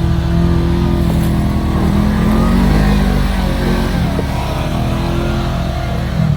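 Side-by-side UTV engine running hard under load, its pitch rising and falling with the throttle, loudest about halfway through.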